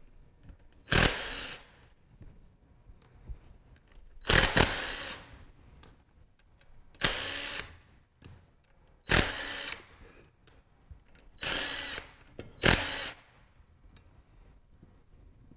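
Cordless drill-driver running in six short bursts of under a second each, backing out the long screws that hold the end cap of a rotary vane pump. Faint clicks of screws being set down come between the bursts.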